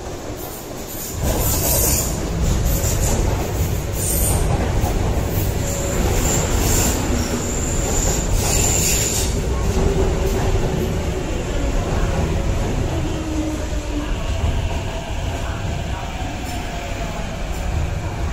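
MTR Kwun Tong line electric train running into the station and braking alongside the platform, with a heavy low rumble of wheels on rail. High wheel squeal comes through in the first half, and a whine from the train as it slows in the second half.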